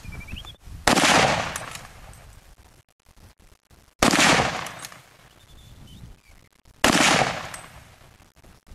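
Three rifle shots about three seconds apart, each sharp crack dying away over about a second.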